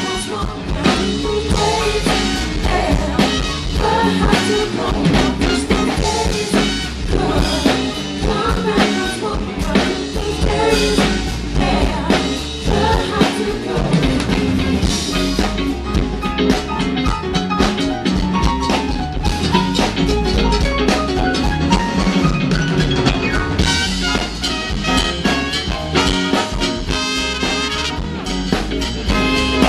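A live band playing, led by a drum kit and percussion keeping a steady beat.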